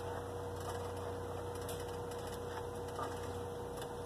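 A cooking spoon stirring melted butter sauce in a stainless steel pot, giving a few light, irregular clicks against the pot over a steady hum.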